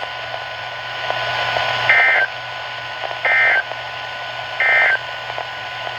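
Emergency Alert System end-of-message signal on a NOAA Weather Radio: three short bursts of digital data tones about a second and a bit apart, marking the end of the warning. They play over the receiver's steady hiss and low hum.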